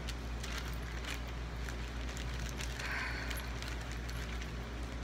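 Hands sorting through craft supplies: light rustling and small clicks, with a brief crinkle about three seconds in, over a steady low hum.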